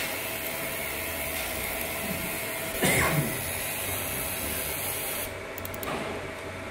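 A steady hiss, with a faint steady hum underneath, that cuts off suddenly about five seconds in. A brief louder sound comes about three seconds in.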